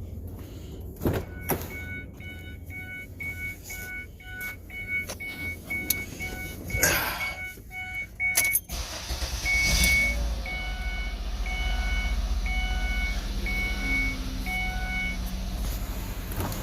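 A car's dashboard warning chime dings about twice a second, with a few clicks and knocks. About nine seconds in the engine cranks and starts, then settles into a steady idle while the chime keeps on for a few more seconds and stops. This is the first start after an oil change.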